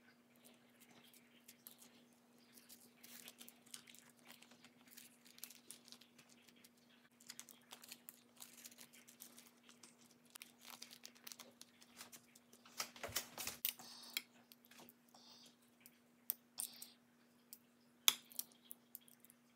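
Faint handling sounds of hand-shaping sushi rice and wrapping nori around it: soft crinkling of the seaweed sheet, sticky pats and small taps, busiest about two-thirds of the way through, with a sharp click near the end. A steady low hum runs underneath.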